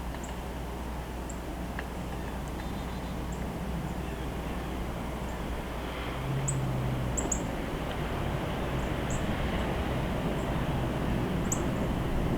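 Outdoor backyard ambience: a steady low rumble of background noise, with short, thin, high bird chirps scattered through it and a brief low hum about halfway through.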